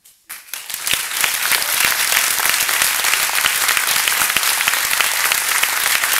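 Audience applauding, many people clapping at once. It starts suddenly near the beginning, swells within about a second to a dense, steady ovation and keeps going.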